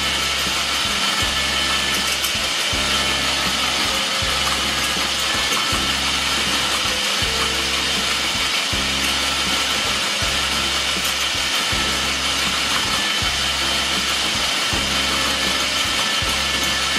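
Electric drill spinning a coconut grater head while a coconut half is pressed against it, its blade scraping out the white flesh: a steady grating whir.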